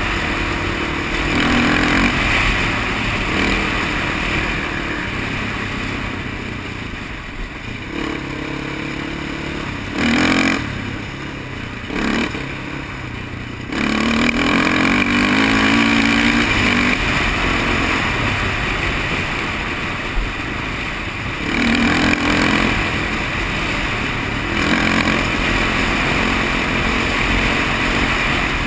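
A Honda sport quad's single-cylinder four-stroke engine running on a trail ride, its pitch rising and falling with the throttle and shifts, with rushing wind noise throughout. About ten seconds in the throttle eases off with two short blips, then the engine revs back up as it accelerates.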